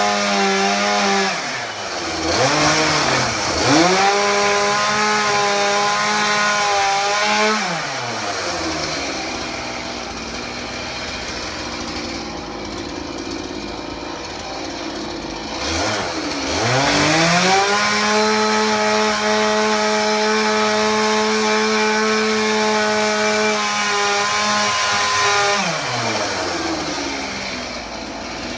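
Two-stroke chainsaw cutting into an old couch: revved to full speed in two long, steady runs of several seconds each, dropping back to a rough idle between them and again near the end.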